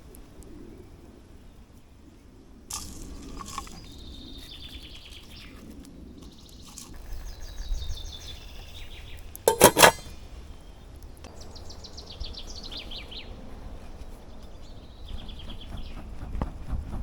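Songbirds singing in short trilled phrases of quick high notes, repeated several times. About ten seconds in, a brief loud clatter of a few sharp knocks.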